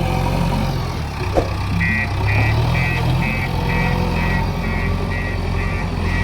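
Diesel engine of a JCB 3DX backhoe loader running steadily. From about two seconds in, a beeping alarm sounds about twice a second.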